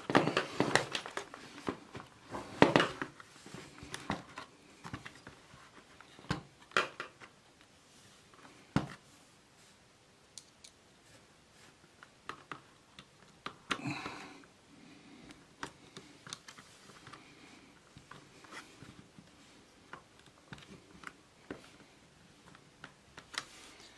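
Plastic parts of a fan heater being handled and pressed into the housing: scattered clicks and knocks, busiest in the first few seconds, with a small cluster about halfway through.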